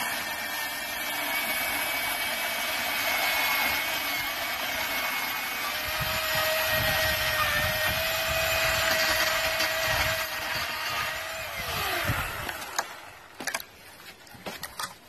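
Milwaukee M18 Fuel brushless cordless chainsaw running at full speed and cutting through a fallen branch, a steady high whine. About twelve seconds in the trigger is released and the motor winds down, falling in pitch and stopping, then a few short knocks follow.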